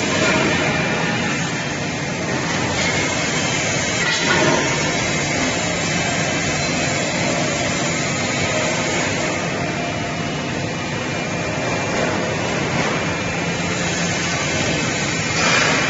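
Steady hiss and hum of workshop machinery, with a light knock about four seconds in and a louder swell near the end.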